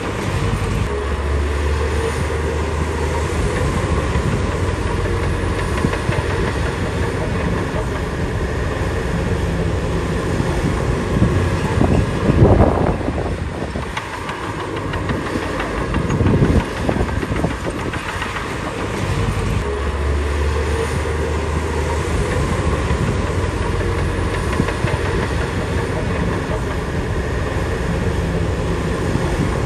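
Shantui DH17B2 crawler bulldozer at work: its diesel engine runs steadily under load while the steel tracks clatter. The engine note swells twice, and there are two louder knocks about 12 and 16 seconds in.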